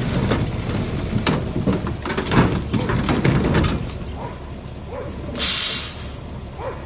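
A school bus chassis dragging a steel flatbed across dirt and gravel: engine running under load with scraping and clanking for the first few seconds, then quieter. About five and a half seconds in comes a short, loud hiss of air.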